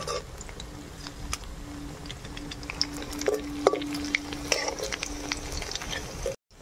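Flat metal spatula scraping and clicking against an aluminium karahi as taro fritters are stirred and turned in hot oil, with light sizzling. A steady hum runs through most of it, and the sound cuts out completely for a moment near the end.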